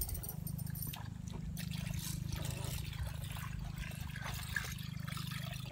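Water trickling and gurgling over a steady, finely pulsing low hum.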